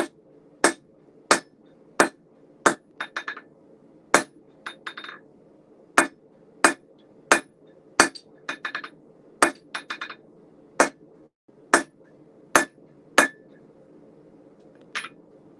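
Blacksmith's hammer striking red-hot steel on an anvil while forging a chisel: a sharp blow about every two-thirds of a second, with quick lighter taps in between. The hammering stops about two seconds before the end.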